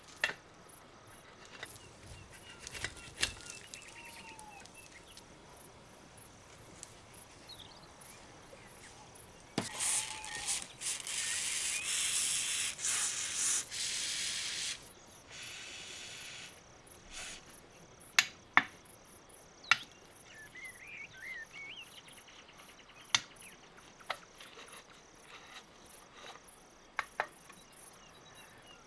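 Aerosol spray can hissing in a few short bursts over about five seconds, aimed at a bolt. Later come a few sharp taps.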